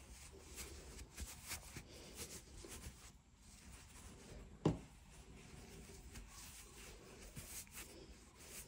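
Faint rustling and scratching of polyester stuffing being pushed by hand into a crocheted yarn piece, with one soft thump about halfway through.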